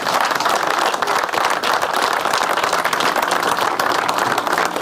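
A crowd applauding, many hands clapping steadily together.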